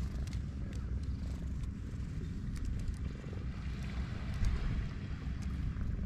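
Tabby stray cat purring steadily while being scratched under the chin and cheeks, a contented purr.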